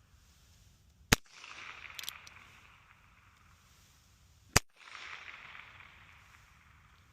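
Two sharp shots about three and a half seconds apart from a .22 LR firearm firing CCI Quiet-22 subsonic rounds. Each shot is a short crack followed by a fading hiss, and faint clicks come about a second after the first shot.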